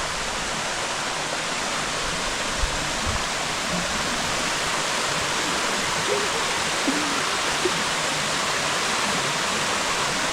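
Steady rush of a tall waterfall pouring into its pool, close by, with a few faint knocks.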